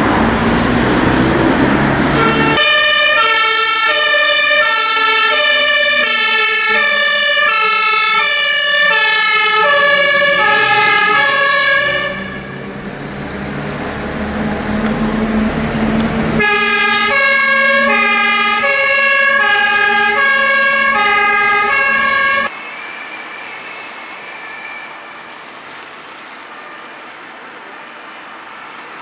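Fire engine's two-tone Martinhorn siren, a high and a low note alternating, sounding in two stretches with a short break between and an engine pulling away under it. It cuts off suddenly about two thirds of the way through, leaving quieter road traffic noise.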